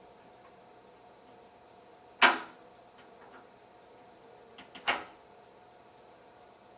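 Spring-loaded plug spinner snapping against a deadbolt's lock plug: two sharp metallic snaps about two and a half seconds apart, with a few faint ticks just before the second.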